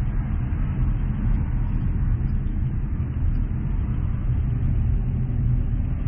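A car driving: a steady, low rumble of road and engine noise.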